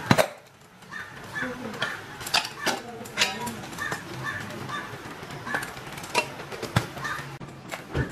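Stainless steel cookware knocking and clinking on a kitchen counter as a pressure cooker and a steel lunch box are set down and handled, with one sharp knock right at the start and scattered clinks after. Near the end a dishwasher door thuds as it is pulled open.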